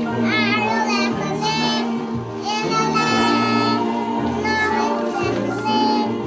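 Young children singing along to a recorded music backing track, with a steady bass line under their voices.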